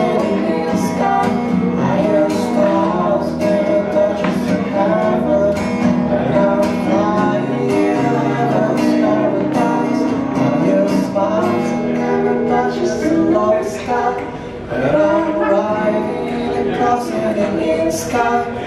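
Live acoustic music: two acoustic guitars strummed and picked together, with singing over them, played through a small PA.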